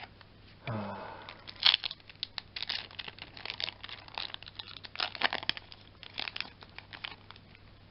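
A foil Yu-Gi-Oh booster pack wrapper being crinkled and torn open by hand: a quick, irregular run of sharp crackles, loudest near the start.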